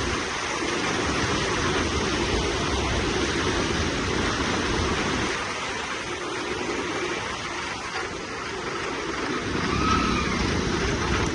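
A vehicle on the move, its running noise blended with a steady, even rush; the low rumble thins out for a few seconds in the middle, then comes back.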